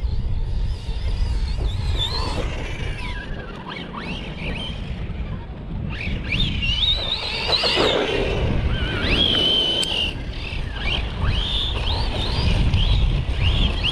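Redcat Kaiju 1/8-scale 6S RC monster truck driving in bursts: its Hobbywing brushless motor whines up and down in pitch with the throttle, most strongly in the second half. Wind buffets the microphone throughout.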